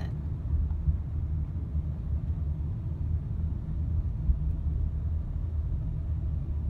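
Honda Odyssey minivan driving, heard from inside the cabin: a steady low road and engine rumble with a brief bump about four seconds in. Its intermittent beep is not sounding.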